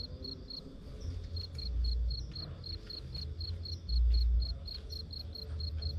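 A cricket chirping steadily, about four even chirps a second, over gusts of strong wind rumbling on the microphone, the heaviest gusts about two and four seconds in.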